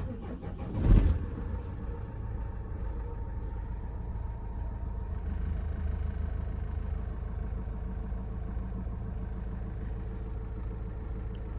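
Diesel engine of a van-based horsebox starting, with a brief rev flare about a second in, then settling to a steady idle. It is the first start after intake and EGR valve work, and the starter motor turns it over despite being shorted the day before.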